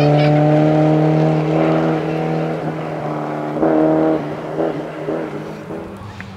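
Rally car's engine running hard on a gravel stage, fading as it pulls away, with a brief rise in revs about three and a half seconds in and a few short bursts of throttle as it recedes.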